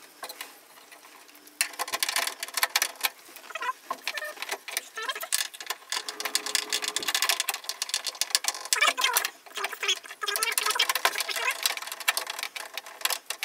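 Rapid clicking of a ratchet spanner running a window-regulator bolt in through a car door's access hole, in runs with short pauses, starting about a second and a half in.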